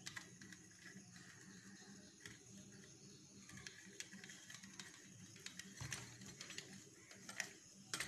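Faint, scattered small clicks and scrapes of a tester screwdriver turning a brass terminal screw, clamping a wire into a switchboard fuse terminal. A faint steady low hum runs under them.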